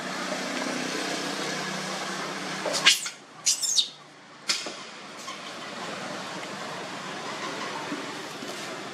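Young monkey giving a few short, shrill screams about three to four seconds in, while pinned by a larger monkey, over a steady background noise.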